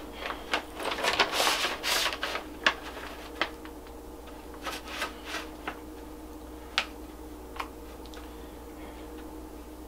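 Paper rustling and crinkling as it is handled, with scattered light clicks and taps; the rustling is busiest in the first few seconds, then only a few isolated clicks follow. A faint steady hum runs underneath.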